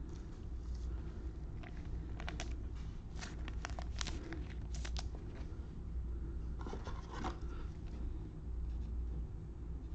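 Trading cards and pack wrappers being handled: short rubbing and scraping sounds with sharp clicks, in bunches a couple of seconds in and again about seven seconds in, over a low steady hum.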